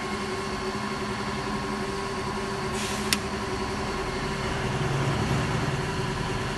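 Air compressor running steadily with a constant hum. About three seconds in comes a short hiss of air ending in a sharp click.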